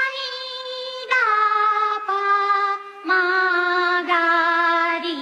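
A high singing voice with a synthetic edge, holding one note about every second and stepping down in pitch like a descending scale.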